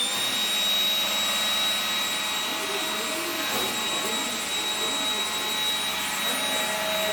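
Tefal Air Force Extreme Lithium 14.4V cordless stick vacuum running steadily at full speed: a high motor whine over the rush of air, just after the motor has spun up.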